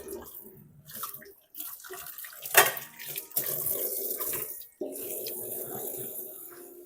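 Tap water running into a sink, uneven, with a sharp knock about two and a half seconds in and a brief break near the end.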